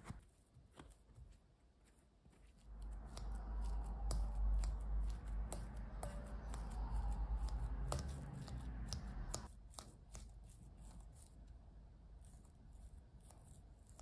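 A metal fork mashing soft cooked kabocha squash in a glass bowl, with sharp clicks of metal against glass. A louder, denser stretch of mashing and bumping of the bowl runs from about three to nine and a half seconds in.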